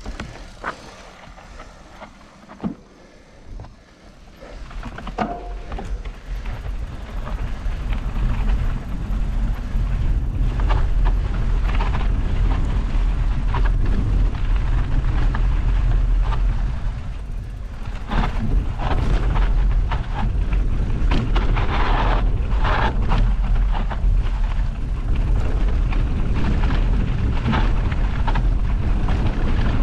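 A mountain bike descending a rough dirt-and-gravel track: wind rumbling on the microphone and tyres crunching over stones, with rattles and knocks from the bike over bumps. It starts quiet and grows loud a few seconds in as the speed builds, then stays loud.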